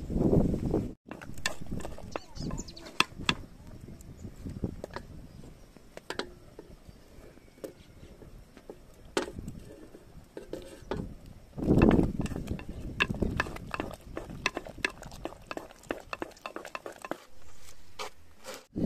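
Kitchenware being handled: scattered clinks and knocks of pots, dishes and cutlery, with a couple of louder low thumps.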